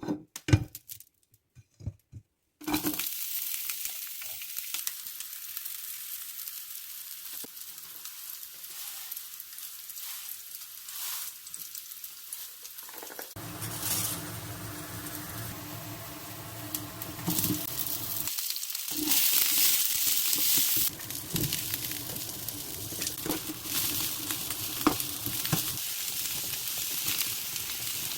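A few knife chops on a cutting board, then food sizzling steadily in a hot frying pan while it is stirred, the sizzle growing louder about two-thirds of the way through.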